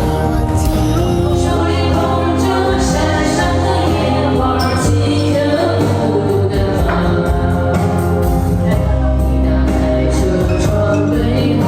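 Background music: a song with singing over a steady bass.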